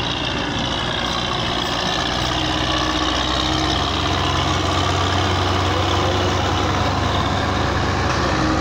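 Diesel farm tractor engine running steadily close by, a low even drone.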